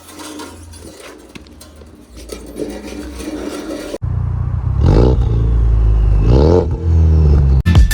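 Turbocharged 2.3-litre four-cylinder Mustang EcoBoost engine through an aftermarket MBRP exhaust, revved loudly twice from about halfway in, each rev rising in pitch. Before that the engine runs more quietly under some scraping and clatter.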